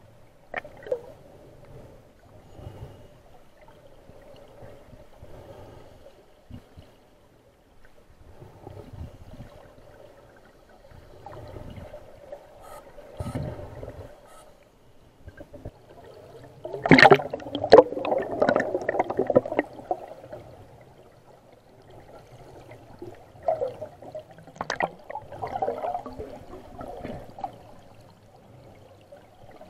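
Scuba divers' exhaled air bubbling and gurgling underwater, coming in swells with each breath through the regulator. The loudest rush of bubbles comes a little past the middle.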